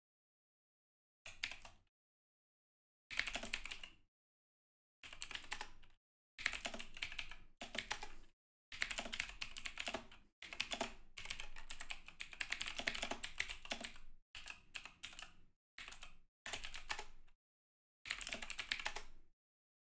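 Typing on a computer keyboard: bursts of loud key clicks with short pauses between them, each pause dropping to dead silence.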